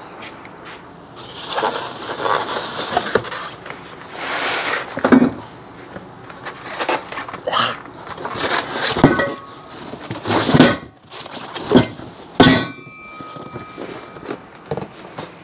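Styrofoam packing and a cardboard box being pulled apart, with scraping and rustling. Steel engine-stand parts clank down onto plywood between the scrapes; two of them ring briefly, about nine and twelve and a half seconds in.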